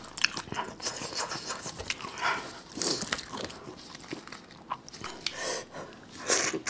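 Gloved hands tearing meat from a chili-sauced sheep's head, a run of irregular rustling and tearing sounds, then a bite into the meat about six seconds in.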